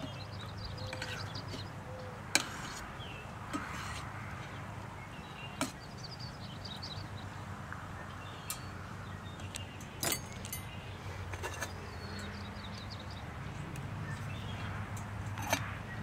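A fork clinking and scraping against a stainless steel canteen cup while noodles are stirred, with a handful of sharp metal taps scattered through, over a steady low rumble of wind on the microphone. Near the end a metal click as the lid goes onto the cup.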